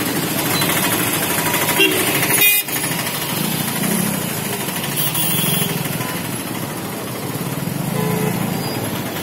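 Busy street traffic: auto-rickshaw and motorbike engines running in a steady din, with a few short horn toots.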